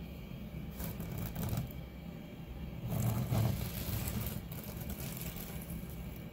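Handling noise of a 3D-printed PLA figure being turned on a wooden desk: brief scuffs about a second in and a louder, longer one around three seconds in, over a steady low hum.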